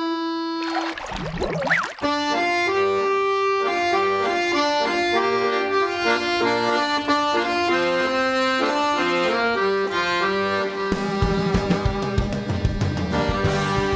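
Piano accordion playing a stepping melody on the keyboard side with bass-button accompaniment, which becomes a steady rhythmic bass pattern near the end. A short burst of noise comes about a second in, before the tune starts.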